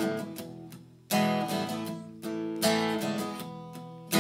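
Acoustic guitar strumming chords without singing. A chord is struck about a second in and two more a little after two seconds, each left to ring and fade.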